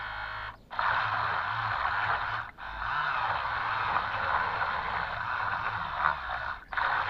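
Toy RC boat's twin 130-size electric motor drive running, a steady hiss of motors and propeller wash. It cuts out briefly three times and stops near the end.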